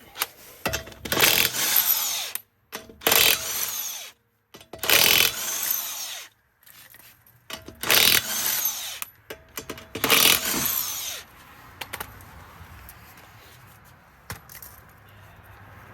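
Handheld power tool run in about five short bursts of a second or so each, then stopping, with only a low background after.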